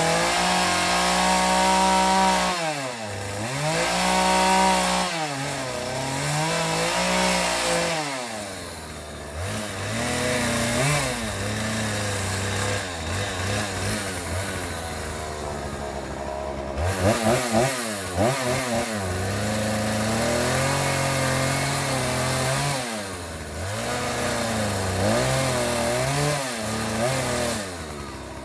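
Power tool motor working wood, its pitch repeatedly sagging under load and recovering.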